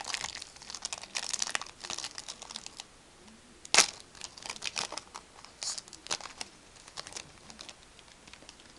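Foil wrapper of a Yu-Gi-Oh! booster pack crinkling as it is handled and torn open, with one sharp rip a little under four seconds in; the crinkling thins out toward the end.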